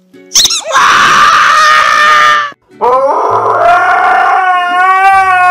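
Husky howling: a rough, harsh cry, a short break, then one long held howl from about three seconds in.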